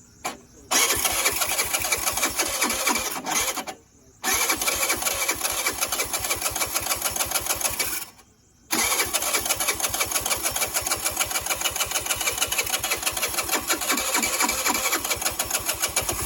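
Electric starter cranking a 49cc scooter engine newly fitted with a 100cc big bore kit, in three long tries with short pauses between, the last one the longest. The pulsing stays even and the engine does not catch.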